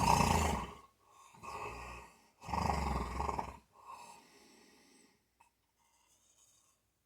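Snoring: two loud, rattling snores, each followed by a softer breath out, then it goes quiet about five seconds in.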